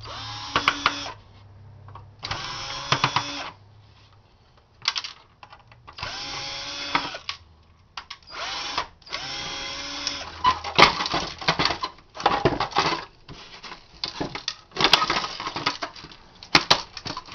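Power drill with a large bit, run in short bursts of about a second, its motor pitch climbing at the start of each. From about ten seconds in the bit bites, and sharp clicks and cracks come thick among the bursts.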